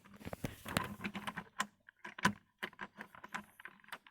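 Irregular light clicks and clatter as an O gauge model train is handled and set back on its rails.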